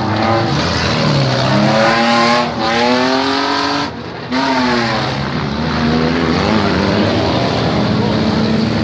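Engines of old race cars revving hard as they go round the track, their pitch climbing as they accelerate and falling as they ease off, with a short drop in level about four seconds in.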